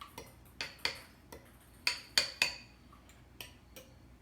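Eggs being beaten by hand in a bowl, the utensil clinking against the bowl's side in about nine quick, uneven strikes, each with a brief ringing tone.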